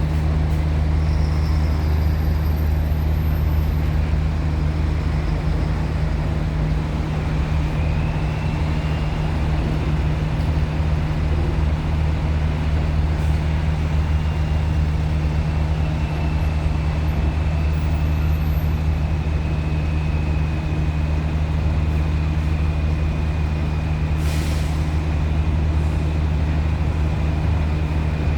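Steady low drone of heavy diesel engines idling, with a short hiss of air, as from an air brake, about 24 seconds in.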